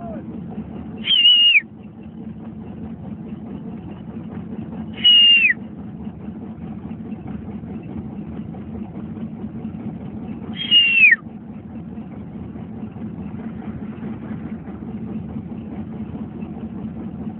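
A person whistling three short whistles, each one falling in pitch, a few seconds apart, over a steady low engine hum.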